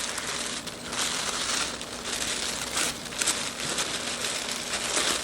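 Packaging crinkling and rustling as a parcel is unwrapped by hand, in uneven bursts.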